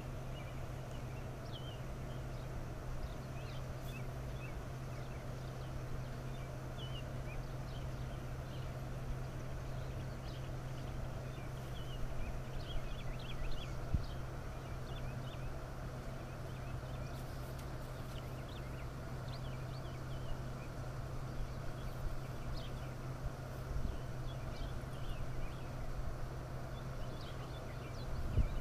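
Outdoor background: a steady low hum with many scattered brief high-pitched chirps from small birds.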